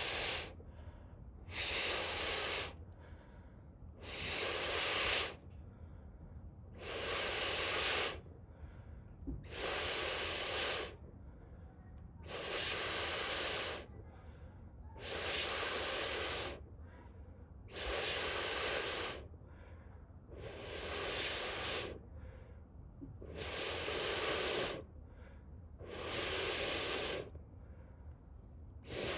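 Air blown in long, even puffs onto a wood fire to fan its embers, about one puff every two and a half to three seconds in a steady rhythm.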